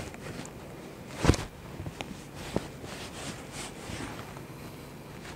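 Quiet room tone broken by one brief, loud thump about a second in, followed by two light clicks over the next second or so.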